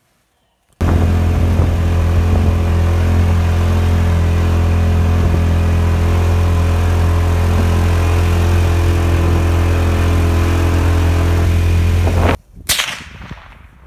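Vehicle engine running at a steady speed with a low, even hum, heard from aboard while driving. It cuts off abruptly near the end, followed by a few sharp knocks.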